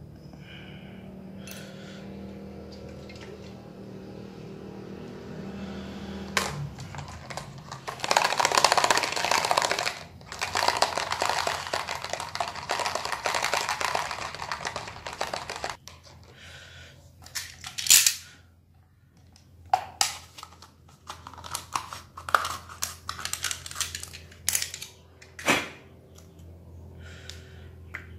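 A small paper cup shaken hard by hand, rattling in two stretches of a few seconds each, to wash rust out of a seized fishing-reel line-roller bearing; after that, scattered light clicks and taps of the cup and small tools being handled.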